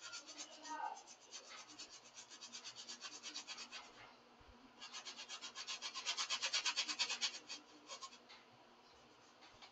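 Paintbrush bristles scratching on canvas in quick, repeated short strokes, several a second, as palm fronds are painted. The strokes come in two runs with a short pause about four seconds in, and die away near the end.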